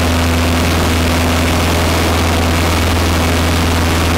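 Cessna 152's four-cylinder Lycoming engine and propeller droning steadily in flight, heard inside the cockpit: a constant low hum with a steady tone above it.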